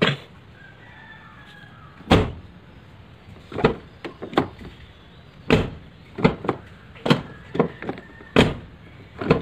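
A Tata Indica Vista's door being swung shut again and again, giving a series of about a dozen knocks and clunks, the loudest about two, five and a half and eight and a half seconds in. It is a check that the door still closes with its proper sound after a magnetic door-open warning light has been fitted.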